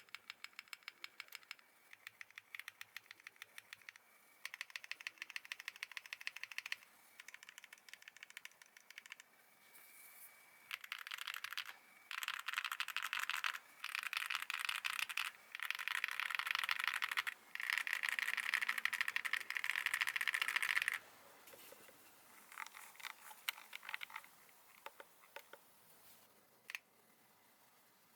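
Monsgeek M1 mechanical keyboard with Leobog Wolfberry V2 switches, GMK-style keycaps and lubed stabilizers being typed on: runs of rapid keystrokes, fastest and densest in the middle, thinning to a few scattered presses near the end.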